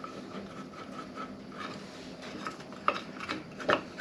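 Light metallic clicks and taps of hands working the power cord's flexible metal conduit and fitting loose from a circulator pump motor's wiring box, a few sharper ticks about three seconds in and near the end, over a steady low background hum.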